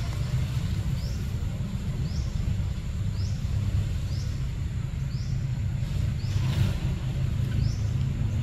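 Steady low outdoor rumble, with a short high chirp repeating about once a second over it.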